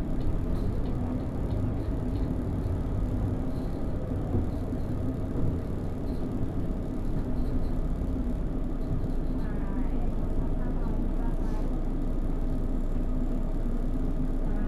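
Cab sound of a Volvo B12BLE city bus under way: the DH12E diesel engine running with road rumble, and a steady buzz from the bus's faulty display. About ten seconds in, a faint whine rises in pitch.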